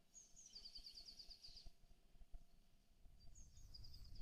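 A small songbird singing twice, each song a quick high trill of a dozen or so rapid notes lasting about a second, over faint outdoor background noise.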